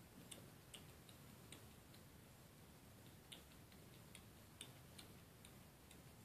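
Faint, irregular small clicks, about one or two a second: a young kitten's mouth smacking as it suckles milk from a feeding syringe.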